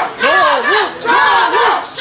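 A dense crowd shouting loudly, several raised voices calling out over one another.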